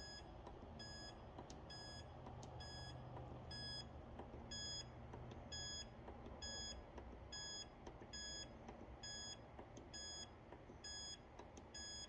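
ASKO dishwasher control panel giving a short, faint electronic beep at each press of its arrow button, a long string of them at roughly one every three-quarters of a second, as the language setting scrolls.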